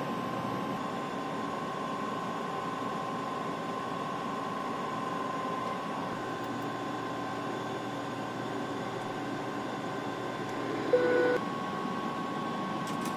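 Steady airliner cockpit background noise, an even rushing hum with a faint constant tone in it. About 11 seconds in, a short electronic tone sounds briefly.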